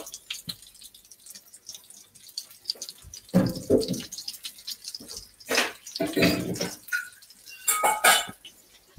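Sesame-crumbed chicken tenders sizzling and crackling in hot oil in a frying pan, with a few louder sounds over the second half.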